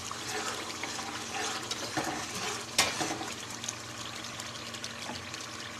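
Thick masala gravy bubbling and sizzling in oil in an aluminium pot, stirred with a spatula at first; the oil has separated, the sign that the masala is well fried. A single sharp knock comes nearly three seconds in.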